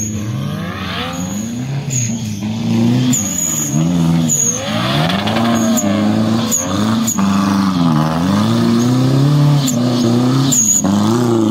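Off-road race vehicle's engine revving hard, easing off and revving again, over and over, as it works through a muddy course.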